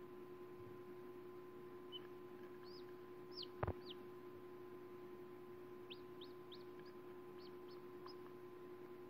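Newly hatching chick peeping from inside its pipped egg: short, high cheeps that fall in pitch, about three around the middle and a quicker run of about seven near the end. A single sharp click about three and a half seconds in, over a steady faint hum.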